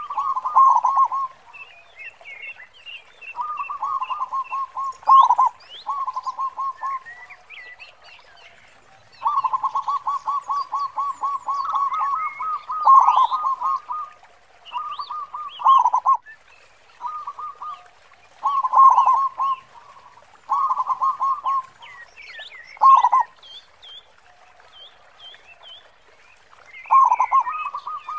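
Zebra dove (local perkutut) cooing: about a dozen phrases of rapid stuttering coos, each ending in a louder drawn-out note, with pauses between phrases. Faint high chirps of smaller birds sound in the background.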